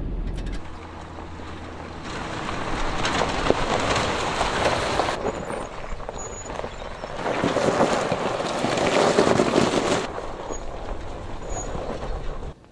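Chevrolet SUV driving slowly over loose rock and gravel: the engine runs with the tyres crunching over stones, in two louder passes that each cut off suddenly.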